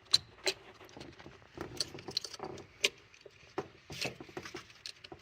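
Irregular clicks and knocks of a coil-on-plug ignition coil being worked by hand down into a spark plug well in a Ford 4.6 2-valve V8, with the engine off.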